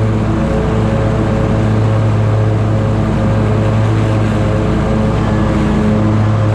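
Scag Tiger Cat zero-turn mower running steadily at cutting speed while mowing grass, its engine and spinning 61-inch deck blades heard close up from the operator's seat.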